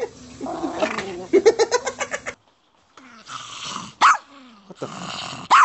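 Small terrier growling in a clothes dryer as a hand reaches in to take out the laundry, the growl coming in rapid pulses. After a brief break, two short rising yelps.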